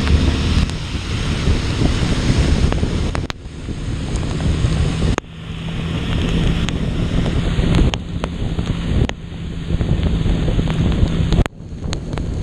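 Wind buffeting the action camera's microphone while riding a Honda CB Twister 250F motorcycle in heavy rain, over a steady low engine hum and the wash of wet road spray. The noise drops suddenly for a moment several times.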